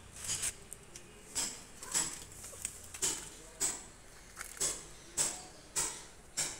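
Footsteps crunching on grit and dry leaves on concrete, a walking pace of roughly one step every half-second or so, with a short pause about four seconds in.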